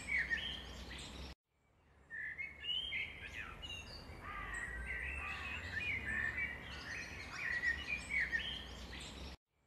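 Birds chirping, many short quick calls overlapping, over a low steady rumble. The sound cuts out abruptly to silence for about half a second a little over a second in, and again near the end.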